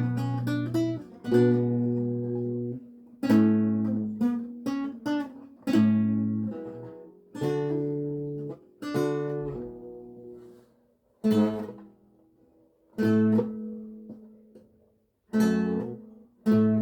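A 7-course Renaissance lute, tuned at 415 Hz, played solo. Plucked chords and short runs ring out and die away, and the phrases break off into brief pauses in the second half.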